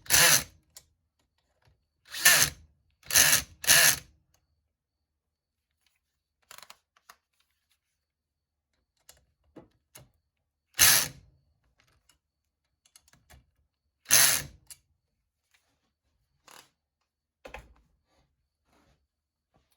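Six short bursts from a hand-held power tool, each about half a second long, three close together at the start and two more later. Faint clicks and knocks of handling come between them.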